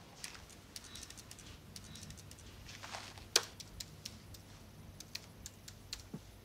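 Laptop keyboard keys clicking in irregular runs of typing, with one louder click a little past the middle.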